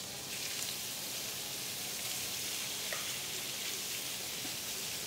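Marinated sliced steak and shrimp searing in hot pans, one of them a grill pan: a steady sizzle with a few faint crackles.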